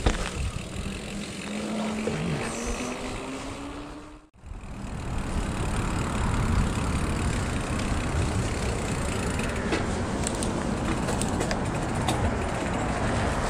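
Steady road and traffic noise while riding a mountain bike along city streets. A rising whine runs through the first four seconds, the sound breaks off suddenly about four seconds in, then the steady noise goes on with a few light clicks near the end.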